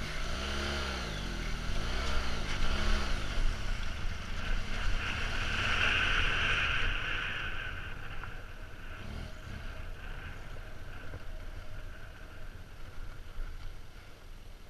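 Motorcycle engine revving up and falling back about three times as the bike picks its way across a shallow, rocky stream, with water splashing loudly. After about seven seconds the splashing stops and the engine runs more steadily with wind noise as the bike rides on gravel.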